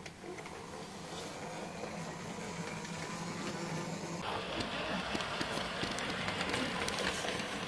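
OO gauge model trains running: the steady whirr of small locomotive motors and wheels on the track. About four seconds in the sound grows brighter and louder, with light clicks, as a second train passes.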